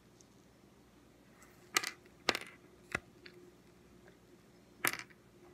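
Tiny ice cubes being popped out of a frozen silicone Pop-It fidget toy, making about four sharp clicks like small hard pieces dropping onto a hard surface.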